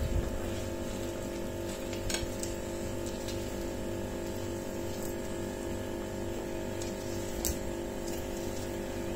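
A steady hum of several fixed tones, with a couple of faint light clicks from a spatula against a glass mixing bowl as thick cake batter is folded.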